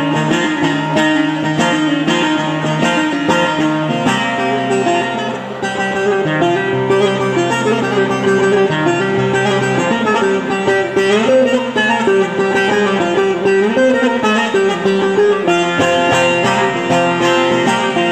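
Bağlama (long-necked Turkish saz) played with a plectrum: a quick picked melody running over a steady lower drone note.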